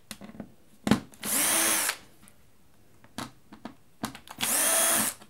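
Cordless drill/driver backing screws out of a mixing console's panel: two short runs of under a second each, the motor spinning up, holding and winding down, with light clicks and knocks between them.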